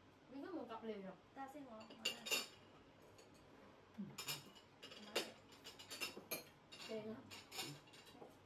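Cutlery and dishes clinking during a meal: utensils knocking against bowls and plates in several separate, sharp clinks, the loudest about two seconds in and again around the middle.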